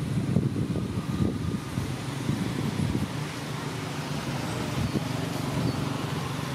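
Steady low rumble of outdoor background noise that flickers constantly; no monkey calls are heard.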